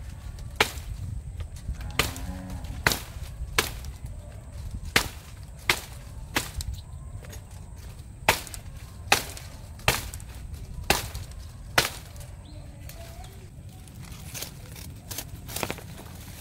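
Machete chopping through tall grass and reed stems: about a dozen sharp cutting strokes, roughly one a second, that stop about three-quarters of the way through, followed by a couple of lighter cuts near the end.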